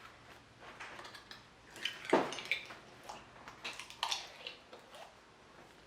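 Clear glue slime with jelly cubes and beads being squeezed and stretched by hand: scattered small clicks and crackles, with one wet squelch about two seconds in.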